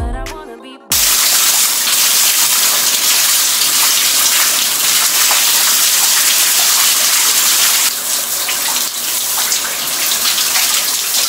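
A loud, steady rushing hiss like running water or static, coming in about a second in as music fades out.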